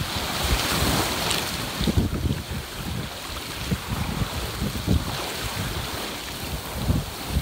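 Bow wave rushing and splashing along the hull of a sailing yacht under way in a fresh breeze, heard close to the hull, with wind buffeting the microphone in irregular gusts.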